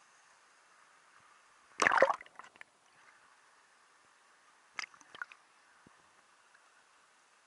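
Water splashing in two short bursts: a louder one about two seconds in and a softer, clickier one about five seconds in.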